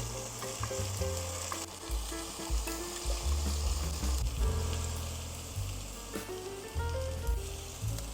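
Food sizzling as it fries in a pan, a steady hiss, with background music playing over it.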